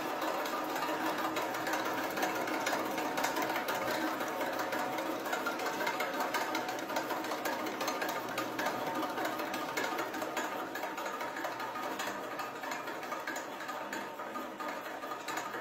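Steel flywheel machine with a crank linkage and coil springs spinning, its linkage and bearings making a rapid, steady mechanical clatter that slowly grows quieter.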